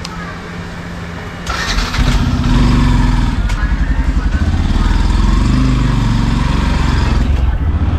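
Motorcycle engine starting about two seconds in, then running steadily at idle with an even, low pulsing beat.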